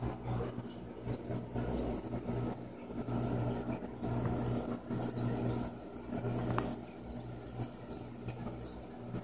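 Aquarium filter running: a constant splash of running water over a steady low electric hum from the pump.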